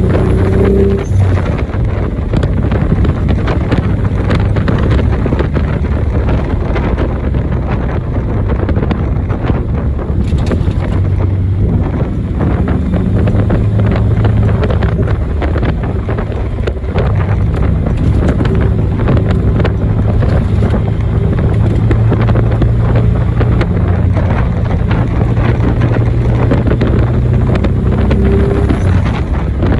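Nissan 300ZX (Z31) being driven: the engine running under way, its note shifting up and down from time to time, under heavy wind noise on the microphone.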